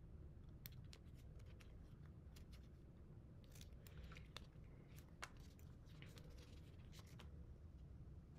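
Faint, irregular snips of small scissors cutting paper, trimming around a paper cut-out, thickest in the middle of the stretch.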